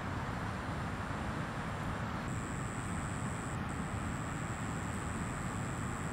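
Steady outdoor ambience of distant traffic rumble with a faint continuous high-pitched whine, which shifts slightly a little over two seconds in; no distinct events.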